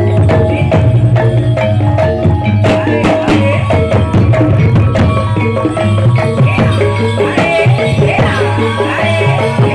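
Live Javanese gamelan-style music accompanying a dance: hand drums keep a busy rhythm over ringing metallophones and a steady low gong-like tone, with a wavering melodic line near the end.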